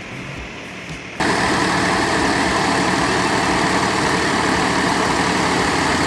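Tractor engine driving a belt-powered wheat thresher, running steadily under load with the thresher adding a dense, even noise. It cuts in suddenly about a second in, after a quieter start.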